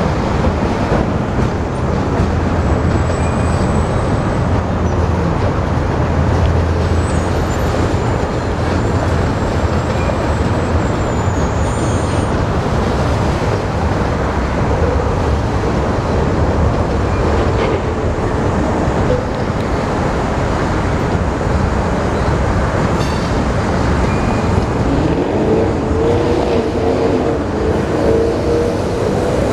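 A CSX freight train of autorack cars rolling past, a steady rumble of steel wheels on rail. A wavering wheel squeal comes in over it near the end.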